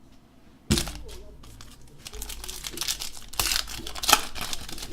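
Foil trading-card pack wrapper being torn open and crinkled: a sharp rip about a second in, then a stretch of crackling and crinkling handling.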